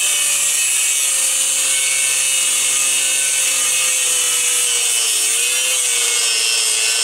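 Angle grinder with a cutoff disc cutting metal at a seized, rusted control-arm bolt and bushing: a steady loud hiss of disc on metal over the motor's whine, which wavers and drops slightly in pitch later on as the disc is loaded.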